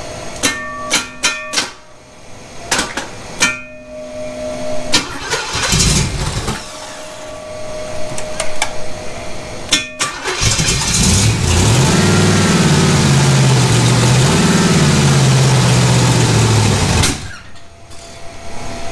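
Freshly built Chevrolet 350 small-block V8 with a solid-lifter cam, on an engine test stand: after a few clicks and clatters it fires about halfway through and runs for several seconds on its first starts, revs rising and falling as the throttle is worked, then cuts off abruptly near the end.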